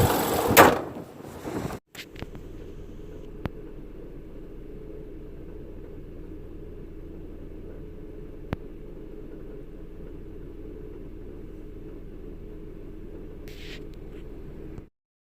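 Nissan Serena minivan's engine running with a loud mechanical noise, a sharp bang about half a second in, then dying away. After a short break, a steady low vehicle rumble with two faint clicks, which cuts off near the end.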